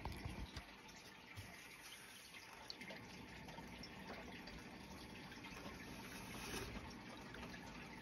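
Faint, steady sound of moving water in an aquarium, with a few small ticks.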